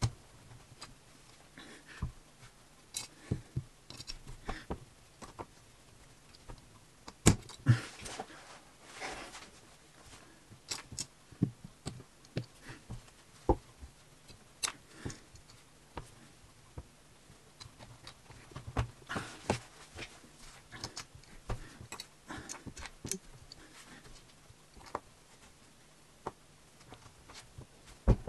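Small plastic LEGO pieces clicking and tapping irregularly as they are pressed together with a hand-held stick, with a few short stretches of rustling as pieces and hands slide over the paper.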